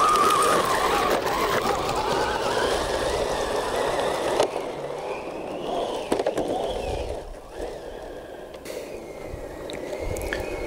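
Electric drive motors and gearing of a 3D-printed 1/12-scale RC tracked dump truck whining, rising and falling in pitch with the throttle, with the tracks rattling over dirt and snow. The sound grows fainter past the middle.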